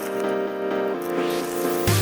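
Background electronic music: sustained synth notes with a rising sweep that builds into a heavy bass drop near the end.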